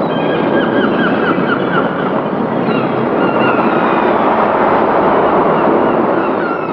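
Steady rush of sea waves and wind. Over it come quick runs of short bird calls in the first two seconds and again around three seconds in.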